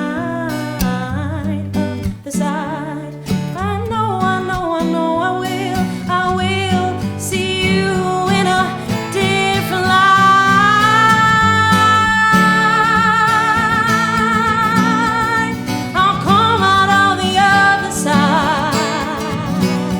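Live acoustic pop song: a woman's voice sings wordless runs and a long held note with vibrato over a fingerpicked acoustic guitar.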